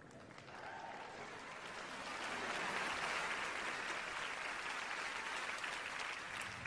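Audience applauding, swelling gradually over the first few seconds and then holding steady.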